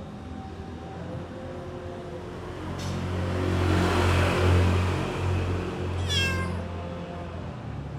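A domestic cat meows once, a short call that falls slightly in pitch about six seconds in. Before it, a low rumbling noise swells and fades in the middle, typical of a motor vehicle passing, and is the loudest sound.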